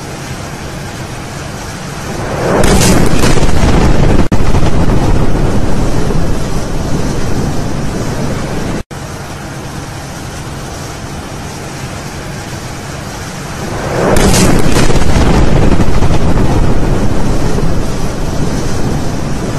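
Chemical plant explosion recorded on a phone: over a steady low noise, a blast about two seconds in swells up and stays loud for several seconds. A second blast swells up the same way about fourteen seconds in.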